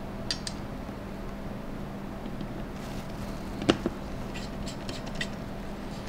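Small clicks and ticks of an AMD stock CPU cooler being seated on the motherboard and its mounting screws turned with a small screwdriver: a few faint ticks, with one sharper click a little past halfway, over a faint steady hum.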